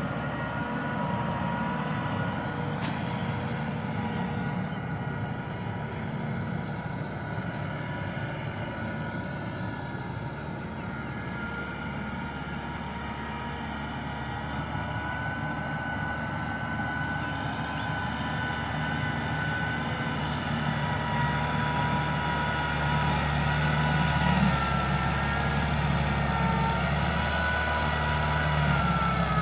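Farm tractor's diesel engine running steadily under load in deep mud, growing louder over the last third as the tractor comes closer, with a slight drop in pitch near the end.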